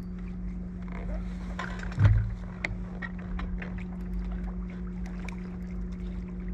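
Handling noise aboard an inflatable fishing boat during a fish fight: a steady low hum under low rumble, one loud thump about two seconds in, then scattered light taps and knocks.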